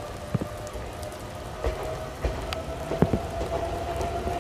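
Scattered sharp taps of rain close to the microphone over a light rain hiss, while a train's low rumble and a steady whine grow louder toward the end.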